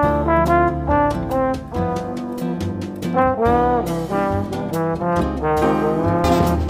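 Brass band music: trumpets and trombones playing a melody over a steady drum beat.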